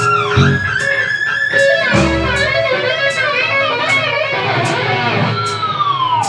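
Live jazz-rock fusion band playing, with electric guitar prominent alongside electric violin, bass and drums. A cymbal strikes at a steady beat, and a long falling pitch slide comes near the end.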